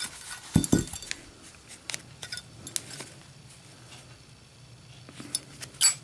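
Zippo lighter with a steel insert being handled: scattered light metallic clicks and clinks, a soft thump about half a second in, and a sharp click near the end as the lid snaps shut.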